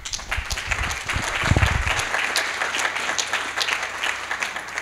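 Audience applauding, a dense patter of many hands clapping, with a low thump about one and a half seconds in.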